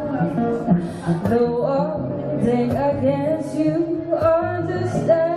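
A woman singing live, holding and bending long notes, to two acoustic guitars.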